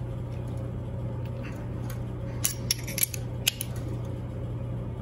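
Light metallic clicks and clinks of a 12 mm wrench working the nut of a push-in tremolo-arm collar as it is tightened onto a Floyd Rose bridge: a handful of sharp ticks bunched in the middle, over a steady low hum.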